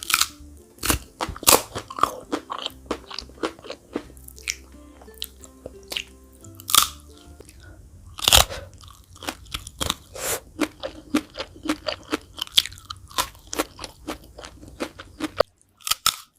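Crunchy bites and chewing of fried chicken feet close to the microphone, many sharp crunches in quick succession. Soft background music plays underneath and stops near the end.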